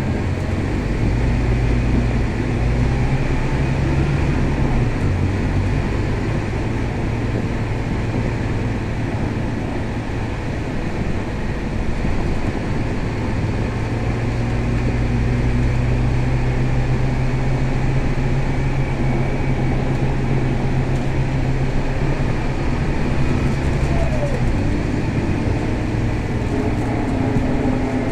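Scania K320 city bus heard from inside the passenger cabin while driving: a steady diesel engine drone with road and body noise, the low engine note shifting pitch a few times as the bus speeds up and slows.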